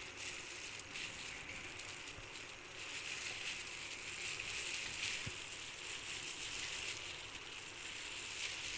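Crinkling of thin plastic food-prep gloves and a soft rustle of flour as hands press and spread a seasoned flour mix over the petals of a cut onion, irregular and unbroken.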